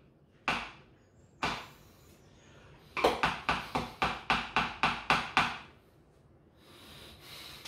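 A tablespoon tapping against the rim of a plastic blender cup to knock off peanut butter. Two single taps, then a quick run of about a dozen taps, some five a second.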